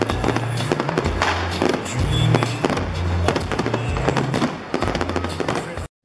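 Fireworks bursting and crackling in quick succession over music with a heavy, held bass line. Both cut off abruptly just before the end.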